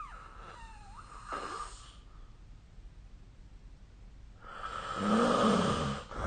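A sleeping person snoring: one loud snore starts about four and a half seconds in and lasts nearly two seconds.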